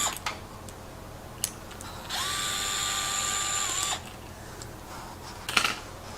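Small cordless power driver backing out the float-bowl screws of a scooter carburetor: one steady whine of about two seconds, starting a couple of seconds in, with a few light clicks of the screws and parts before and after.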